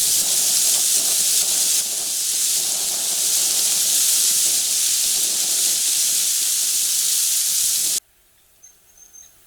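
A loud, steady high-pitched hiss that cuts off abruptly about eight seconds in, followed by near quiet with a few faint, short high chirps.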